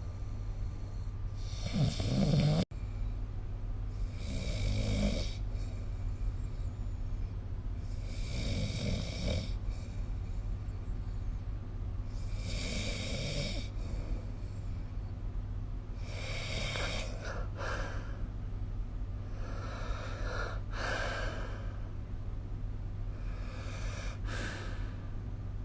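A sleeping person snoring, one snore about every four seconds, over a steady low hum. The loudest snore is near the start, followed by an instant's dropout in the audio.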